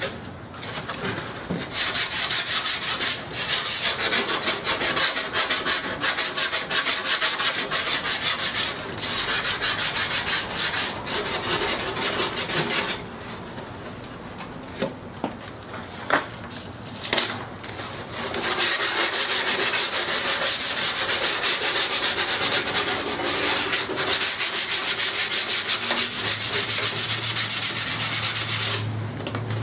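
Hand sanding the cut edges of the power-pod hole in a model aircraft wing: fast back-and-forth rubbing strokes in two long spells, with a pause of a few seconds and a few light knocks between them.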